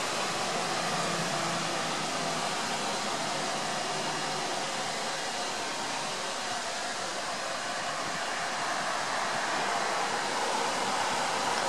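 Steady hiss of light rain falling, an even rushing noise with no distinct drops standing out.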